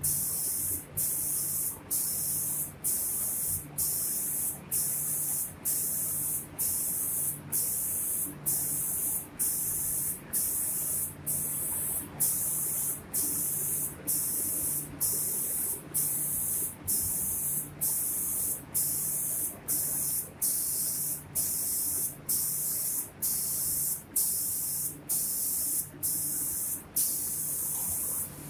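Automatic spray gun of a cabinet-door painting machine hissing as it sprays paint, cutting off briefly about once a second in an even rhythm, over a low machine hum.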